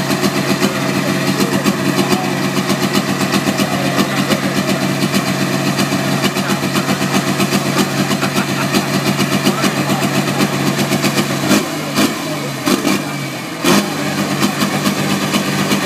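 Valtra pulling tractor's diesel engine idling steadily with an even rumble, then about twelve seconds in the idle breaks up into a few short, sharp blips of the throttle.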